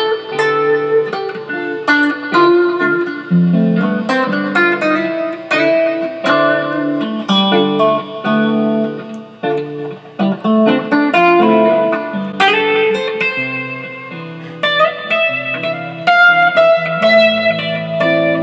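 Electric guitar, a 1965 Fender Mustang, played on its final play test after a re-fret and setup: a run of picked single notes and chords, each note struck sharply and left ringing.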